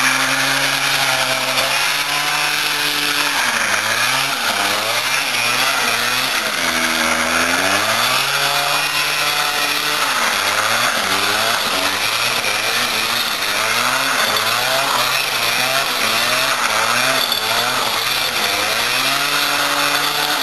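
Suzuki PV 50 cc two-stroke moped engine revving hard during a burnout with the rear wheel spinning. Its pitch rises and falls again and again, with one deeper dip and recovery about seven seconds in.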